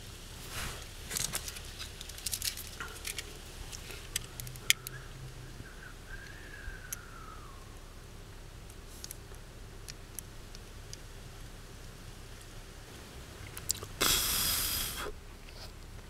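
Small clicks and taps of a wire being handled and soldered onto a blade fuse held in pliers, then a loud burst of hiss lasting about a second near the end.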